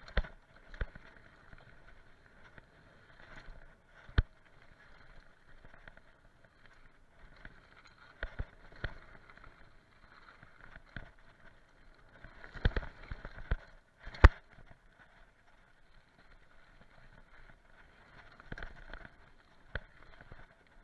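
Mountain bike descending a bumpy dirt trail, picked up by the rider's action camera: a steady rushing noise with sharp knocks and clatter as the bike hits bumps. The hardest knocks come in a cluster about 12 to 14 seconds in.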